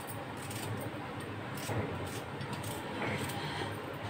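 A small knife slicing an onion on a steel plate, with a few faint taps of the blade against the plate over a steady background hiss.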